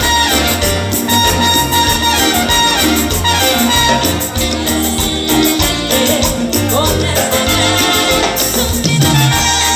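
Live dance band playing upbeat Latin salsa-style music with brass and a steady bass beat.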